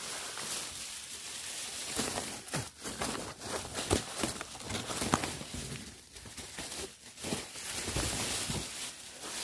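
Leaves, vines and twigs rustling and crackling irregularly as someone pushes through dense undergrowth by hand, with footsteps in leaf litter.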